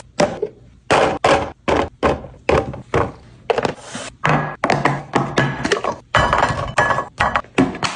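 Groceries and containers being set down and slid into place in a refrigerator: a quick, irregular series of thunks, knocks and rattles, one or two every half second or so.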